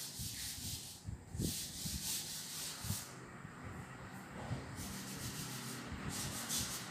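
Chalkboard duster wiping chalk off a blackboard in quick back-and-forth rubbing strokes. The strokes come in three spells, with a short pause about a second in and a longer one between about three and five seconds.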